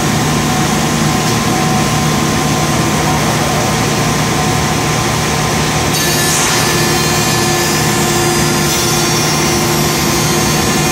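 Unique 2722 CNC machining center's router spindle running and cutting profiles into the ends of two solid wood door rails at once, a loud steady machining noise. A higher-pitched whine joins in about six seconds in.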